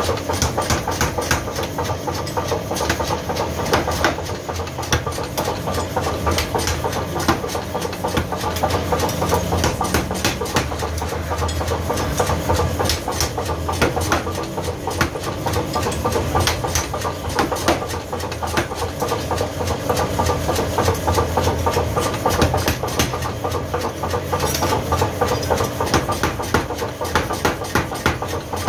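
Belt-driven mechanical power hammer running and striking a red-hot steel blank on its die in rapid, repeated blows, over the steady hum of its electric motor.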